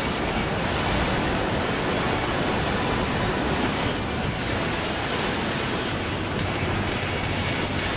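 Sea surf breaking and washing over shoreline rocks: a steady rushing of white water.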